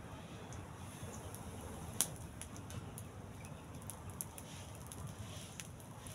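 Small wood cooking fire crackling with scattered sharp pops, the loudest about two seconds in, over a low steady hiss as it is blown up from smoke into flame.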